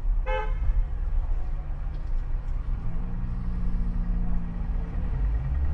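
Steady low engine and road rumble of a bus heard from inside the passenger cabin, with a short vehicle-horn toot just after the start.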